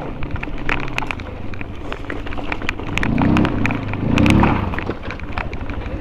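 Mountain bike riding fast down a stony gravel track: tyres crunching over loose stones, with a steady rattle of clicks from the bike. About three and four seconds in there are two brief, louder pitched swells that rise and fall.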